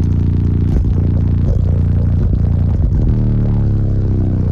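A rap track played very loud through two Team EM Audio 18-inch subwoofers in a ported box tuned to 29 Hz, heard inside the hatchback's cabin: deep sustained bass notes, changing note about three seconds in, with clattering from the car's interior.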